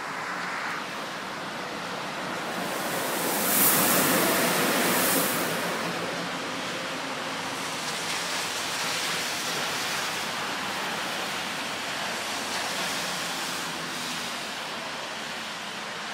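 Siemens Taurus electric locomotive, running on its own, passing at speed: a rush of wheel and air noise that swells to its loudest a few seconds in, then fades as it draws away, over a steady hiss.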